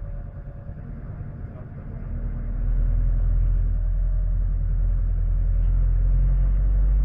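Coach engine and road rumble heard from inside the cabin while driving on a motorway, growing louder about two seconds in and then holding steady.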